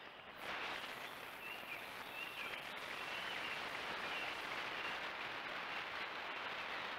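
Steady outdoor hiss with a few faint, high bird chirps, about a second and a half in and again around four seconds.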